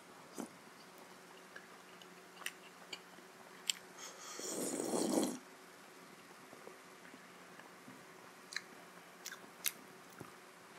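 A person eating momo: chewing with scattered small mouth clicks, and about four seconds in a loud slurp lasting about a second and a half, swelling and then cutting off, as the jhol soup is drunk from the bowl.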